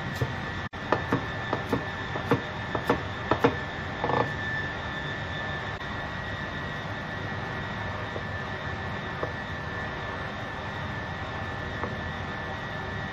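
A kitchen knife chopping on a plastic cutting board: a run of sharp, irregular taps over the first three and a half seconds, then a short scrape. Under it, a steady hum with a thin high whine.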